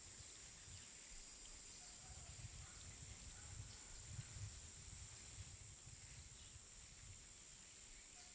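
Near silence: faint background tone with a steady thin high-pitched hiss, a soft low rumble and a few faint chirps. The rotary hammer seen drilling is not heard.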